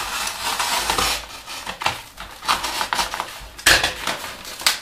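A model-kit part's packaging being opened and handled: rustling and crinkling for the first second or so, then scattered clicks, with two sharp snaps near the end.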